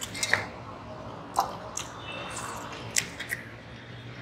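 Eating by hand from a steel plate: fingers pinching and mixing soft khichri against the metal, with short wet squishes and sharp clicks about a second apart, and chewing.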